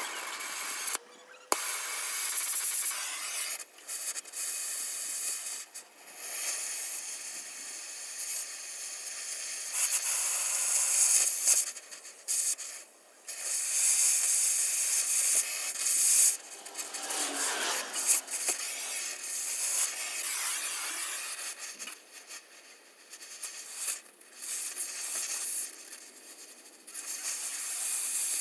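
Oxy-fuel torch hissing as its flame works on the steel of a trailer axle mount. The hiss surges louder and breaks off several times.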